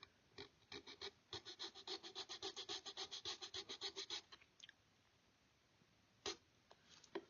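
A fine hand file worked in quick, even back-and-forth strokes, about seven a second for some three seconds, cutting small curves into a gun-kit panel near the wedding band. A single click follows near the end.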